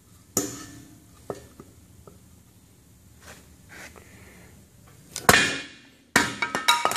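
A wooden 4x4 block knocked about while being set up, then a loud strike about five seconds in and, a second later, a quick run of sharp knocks with a short metallic ring. This is a homemade splitter's weighted maul head being driven through the 4x4, and the split pieces falling.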